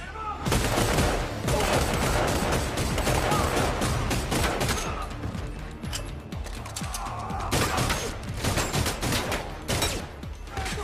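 Gunfight from an action film's soundtrack: rapid gunshots in quick succession. They start about half a second in, ease off a little past the middle and pick up again near the end.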